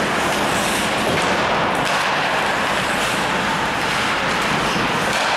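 Steady, even noise of an ice hockey game in an indoor rink, with players' skates on the ice.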